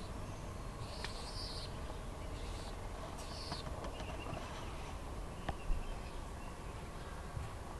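Outdoor ambience: a steady low rumble of wind or handling on the microphone, with a few short bird chirps about a second and three and a half seconds in.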